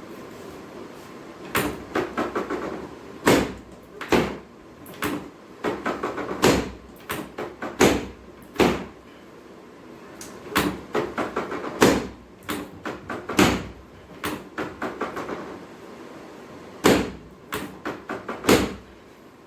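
Series of sharp knocks and taps, coming in quick runs of several strikes with single louder knocks between.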